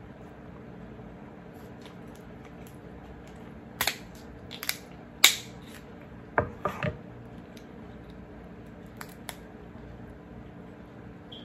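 Kitchen shears snipping and cracking through king crab shell: a handful of sharp snips and cracks between about four and seven seconds in, the loudest a little past five seconds, then two faint clicks about nine seconds in.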